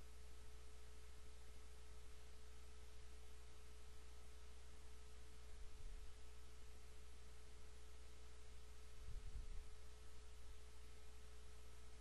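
Quiet recording noise floor: a steady hiss with a low electrical hum and a thin, steady whine, broken only by a couple of faint low bumps.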